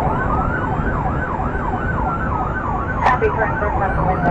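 Police car sirens from the pursuing cruisers sounding together: one yelping fast, about three or four sweeps a second, and another wailing slowly up and then down, over road noise from the moving cruiser. A brief sharp click comes about three seconds in.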